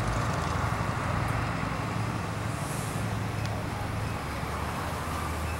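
Steady low hum of street traffic, vehicle engines running.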